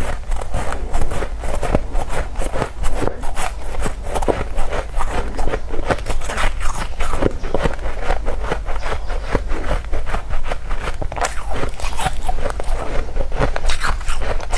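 Close-miked biting and chewing of powdery freezer frost: a rapid, continuous run of soft crunches.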